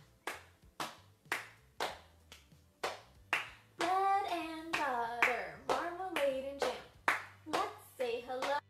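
A woman clapping her hands in a steady rhythm, about two claps a second; about four seconds in she starts singing over the claps.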